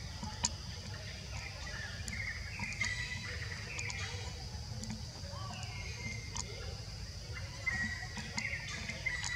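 Forest ambience: a steady high insect drone, with short chirping animal calls scattered through it, strongest a little before three seconds in and about eight seconds in, a few sharp clicks and a low rumble underneath.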